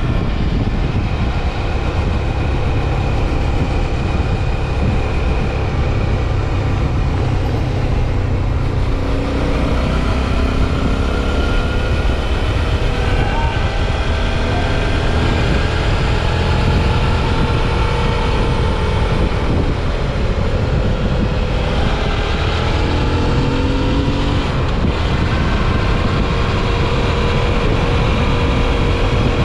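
Suzuki V-Strom 650 XT's V-twin engine running while riding, its pitch rising and falling a few times, under a heavy low wind rumble on the microphone.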